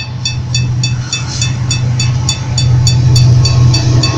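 Diesel engine of an approaching EMD GT-22CW freight locomotive, growing louder as it nears. A level-crossing warning bell rings over it, about four strokes a second.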